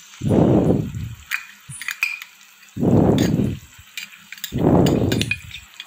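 Wooden spatula stirring thick, sticky wheat halwa in a pan, now cooked down until it pulls together. Each stroke is a dull, low rush, coming about every two seconds, with small clicks of utensils against the pan in between.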